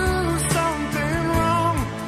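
1970s pop ballad recording: long, wavering melody notes held over a steady band accompaniment.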